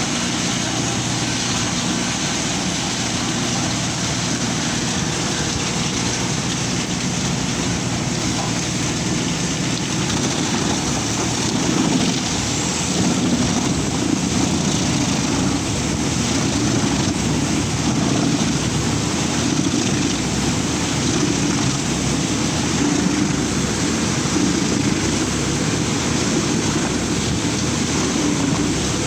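Engine-driven wood chipper running steadily. About twelve seconds in the sound turns rougher and a little louder.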